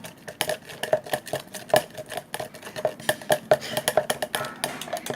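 Slime being mixed in a pot: a fast, irregular run of sharp clicks and taps.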